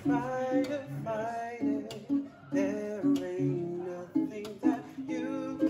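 Acoustic guitar music playing a melody.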